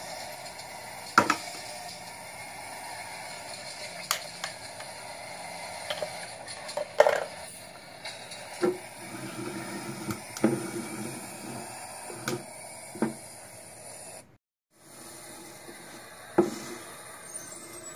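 Irregular sharp clicks and clacks of metal kitchen tongs gripping small plastic toy wheelie bins and knocking them down on a concrete floor, about a dozen knocks over a steady low hiss. The sound drops out briefly about fourteen seconds in.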